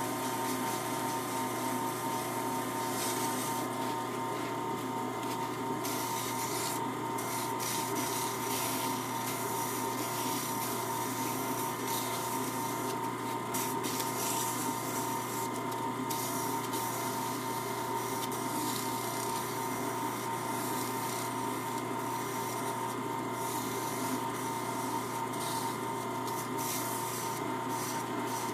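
Sandpaper rubbing against a rosewood prayer-bead imam spinning on a small wood lathe, the scratchy friction coming and going as the pressure changes, over the steady hum of the lathe's motor.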